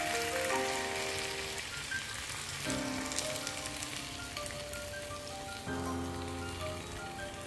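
Chips and beaten egg sizzling in a hot frying pan, a steady hiss under background music.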